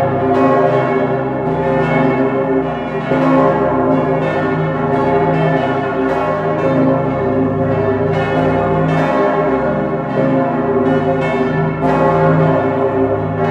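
Full peal of St. Stephen's Cathedral's swinging bells, heard close up in the bell chamber: the Pummerin and the eleven 1960 Pfundner bells, tuned down to low C. The strikes come thick and overlapping, and the ringing hum never dies away between them.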